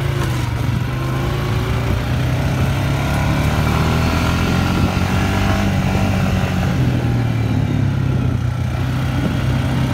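ATV engine running steadily while riding along, its pitch rising and falling a little with the throttle.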